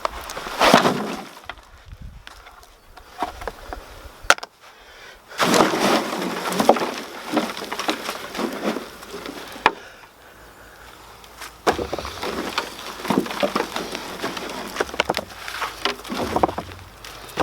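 Hands digging through dry compost from a potato container, crunching and rustling in irregular bursts, with a few sharp knocks.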